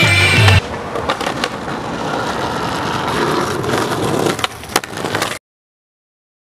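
Background music cuts off about half a second in, giving way to skateboard wheels rolling on concrete sidewalk, with a few sharp clacks of the board. The sound cuts out abruptly near the end.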